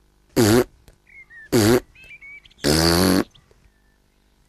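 Cartoon piglet George's hiccups: two short, squeaky hiccup sounds about a second apart, followed by a longer, buzzier voiced noise from the piglet.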